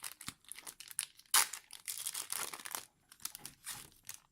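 Foil Yu-Gi-Oh booster pack wrapper crinkling in a quick run of crackles as it is torn open, the sharpest crackle about a second and a half in.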